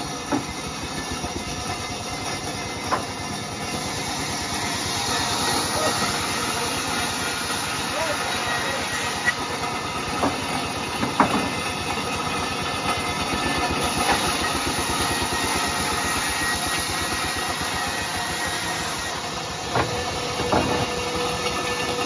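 Sawmill band saw running and ripping planks lengthwise: a steady hiss of the blade cutting through wood, with a few sharp knocks.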